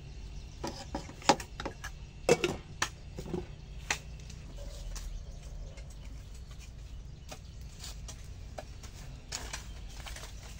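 A run of sharp clicks and knocks from a metal cooking pot and lid being handled, then sparse small crackles from a small wood fire under the pot, over a steady low background hum.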